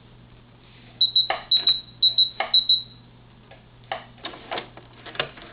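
Singer Futura computerized sewing machine beeping four times, a short high beep about every half second, each with a sharp click. Scattered clicks and knocks follow over a faint steady hum.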